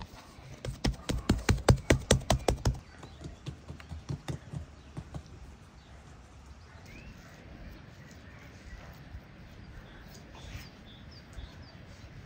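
A quick run of sharp knocks, about six a second, lasting about two seconds, then softer, scattered taps. Faint bird chirps follow.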